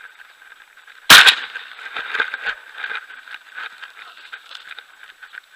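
A single shotgun shot about a second in, followed by a few light clicks and knocks.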